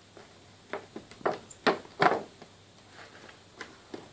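A large cardboard toy box handled by hand: a series of short knocks and taps as it is gripped and shifted, the loudest about two seconds in.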